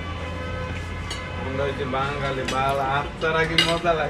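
Forks and spoons clinking and scraping on ceramic plates as a group eats, with a few sharp clinks near the end, over a voice with music-like held tones.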